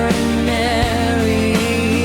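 Mellow rock song: a voice singing a held, wavering melody line over bass and drums.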